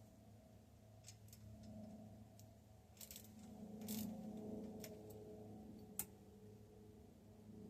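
Faint scattered clicks and light metallic taps, like small parts being handled, over a low steady hum, with one sharper click about six seconds in.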